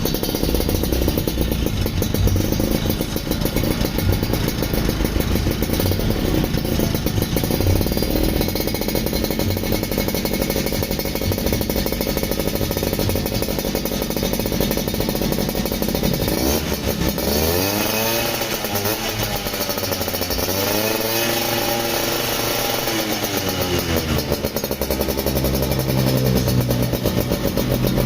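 Yamaha V80 Super Deluxe's two-stroke single-cylinder engine running through a newly fitted racing exhaust, idling with a rapid pulsing beat. In the last third it is blipped, revving up and down several times, then settles back to idle near the end.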